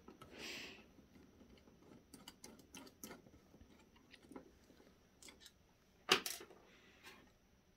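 Faint clicks and taps from a screwdriver and small parts being handled inside the metal chassis of a rack power strip, with a sharper double click about six seconds in.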